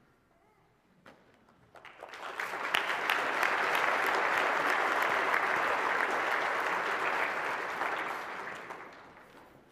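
Audience clapping: it starts about two seconds in, swells quickly, holds steady and dies away near the end.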